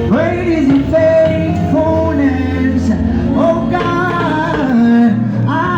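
Gospel praise music: sung vocal lines over live band accompaniment.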